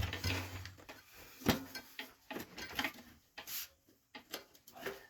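Scattered clicks and knocks of hand tools and metal parts being handled while working on an electric bike's hub-motor wheel, with one sharper knock about one and a half seconds in.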